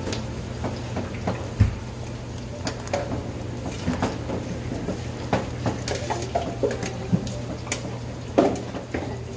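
Metal ladle scraping and knocking against a wide metal pan of tteokbokki, with irregular clinks and clatter of kitchenware and a sharp knock about a second and a half in and another near the end, over a steady low hum.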